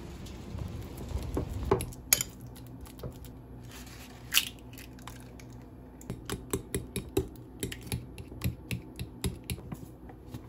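Kitchen utensils clinking and knocking against dishes. From about six seconds in comes a run of quick, regular taps, about four a second, over a steady low hum.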